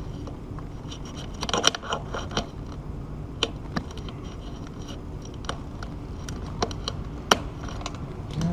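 Weather stripping being handled and worked into the door frame by hand: scattered clicks and scrapes, with a short cluster of scraping about one and a half seconds in and then single sharp clicks every second or so.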